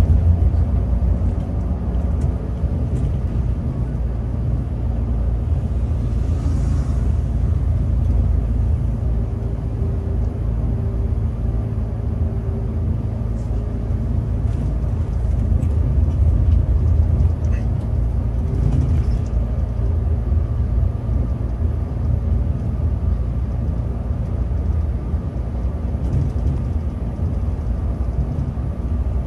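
Scania K360 coach under way, heard from the driver's seat: a steady low rumble of its 13-litre six-cylinder turbo diesel mixed with road noise.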